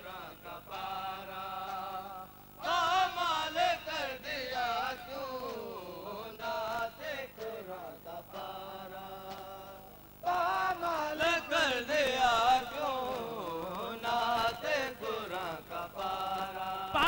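Male voices chanting a noha, a Shia lament, with a wavering, ornamented melody that swells and falls back in turns, the crowd answering the reciter. Rhythmic slaps of chest-beating (matam) sound under the chant.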